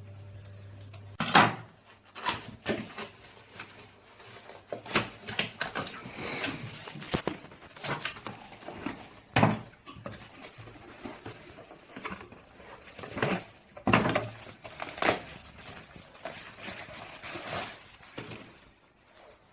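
Irregular clicks, knocks and rattles of hard objects being handled, with a few louder knocks scattered through. A low steady hum cuts off about a second in.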